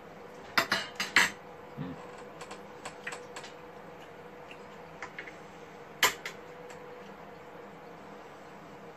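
Sharp clinks and taps of tableware and glass hot-sauce bottles being handled on a table: three loud clinks in quick succession about a second in, lighter taps over the next few seconds, and one more loud clink about six seconds in.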